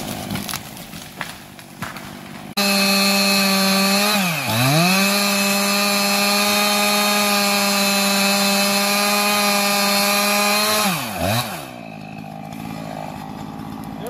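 Two-stroke chainsaw running at full throttle in a felling cut at the base of a pine. It comes in abruptly about two and a half seconds in, sags in pitch once and recovers, holds steady for about six seconds, then drops back toward idle near the end. The quieter first seconds hold a few sharp cracks.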